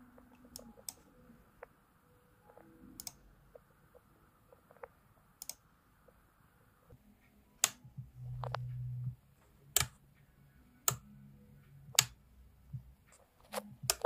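Sharp clicks of toggle switches on a radio-control transmitter being flipped, about a dozen at uneven intervals and louder in the second half, with a short low hum about eight seconds in.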